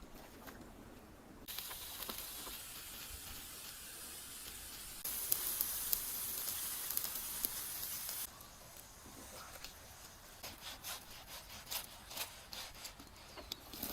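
Meat sizzling in a hot pan, a steady hiss that starts suddenly about a second and a half in, grows louder with fine crackles about five seconds in, then cuts off, leaving quieter scattered pops.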